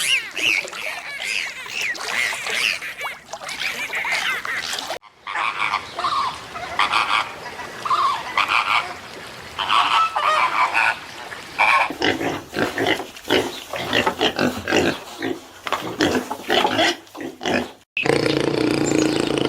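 Farm animals calling in several clips cut together, with sudden cuts about five seconds in and near the end. The calls are pitched and wavering at first, then a run of short, sharp calls.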